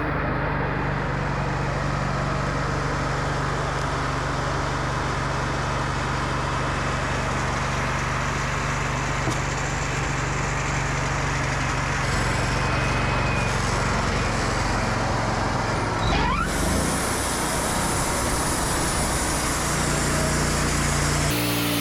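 WoodMizer LT40 Wide portable bandsaw mill running, its engine humming steadily. The sound shifts about three-quarters of the way through and again near the end.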